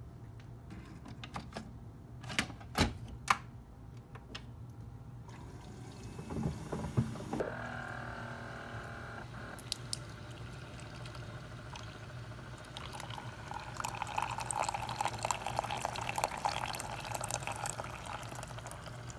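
Single-serve pod coffee maker brewing: a few sharp clicks, then the machine starts up with a brief hum, and coffee streams and sputters into a ceramic mug, getting louder in the second half.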